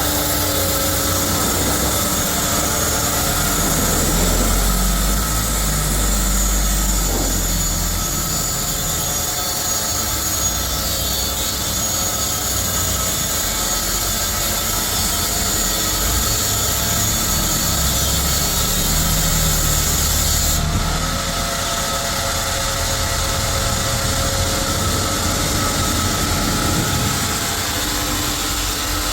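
Sawmill machinery running steadily, a power saw at work on timber. The higher hiss drops off suddenly about two-thirds of the way through.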